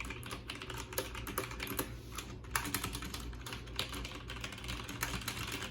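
Logitech G512 Carbon mechanical keyboard with GX Brown tactile switches being typed on, its keys clacking in quick, irregular strokes.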